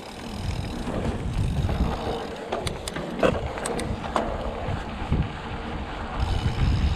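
Mountain bike descending a dirt trail at speed: wind buffeting the microphone over the low rumble of tyres and frame on rough ground, with a few sharp rattles and knocks in the middle.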